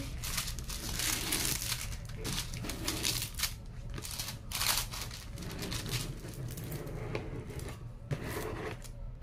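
Clear plastic film on a diamond-painting canvas crinkling and rustling as hands and a flat black tool are rubbed and pressed across it, in irregular swishes.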